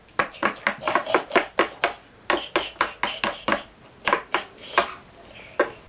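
Hard plastic Lego pieces and minifigures knocking and clacking together in a quick run of sharp taps, about three or four a second, easing briefly around two seconds in and again near the end.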